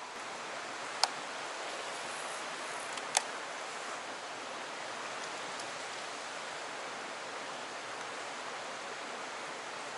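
Steady rush of a fast stream current pouring over rock, with two sharp clicks about two seconds apart early on.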